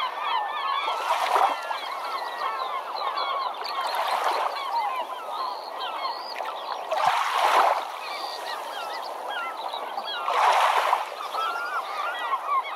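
Many birds calling at once, a dense chatter of short overlapping calls, with a louder rushing swell of noise about every three seconds.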